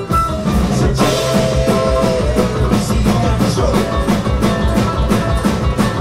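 Live bluegrass-instrument band playing a heavy-metal cover: strummed acoustic guitar, banjo, upright bass and drum kit driving a steady rock beat, with singing.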